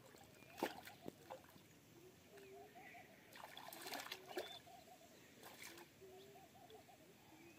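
Faint splashing and sloshing of shallow water as a thrashing tilapia is handled and worked loose from a net, a few light splashes and then a denser cluster about three to four seconds in.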